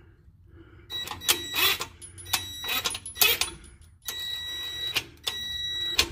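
Cordless impact wrench with a 24 mm socket driving a scissor jack's screw to lift a truck's front differential. It gives short bursts of whirring and clatter, then two steady runs of motor whine from about four seconds in.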